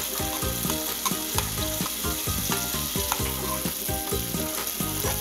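A tomato purée and zucchini mixture frying in a metal pan with a steady sizzle, while a spoon stirs it, repeatedly scraping and knocking against the pan.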